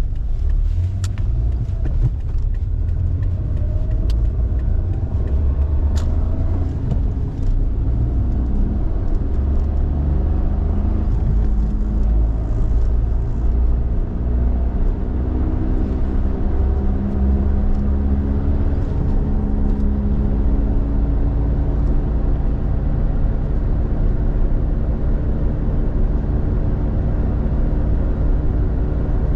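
Suzuki Lapin driving, with a steady low rumble and a hum from a worn, failing hub bearing that slowly rises in pitch as the car gathers speed. The bearing noise is the kind that sets in above about 40 km/h.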